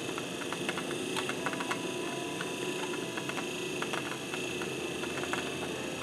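Mr. Coffee BVMC-EL1 café latte maker running, its frother whisk spinning in the milk pitcher while the water heats. A steady whine sits under rapid, irregular clicking.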